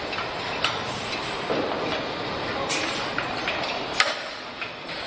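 Assembly-hall noise: a steady machinery hum with scattered sharp metallic clicks and clanks, the loudest about four seconds in.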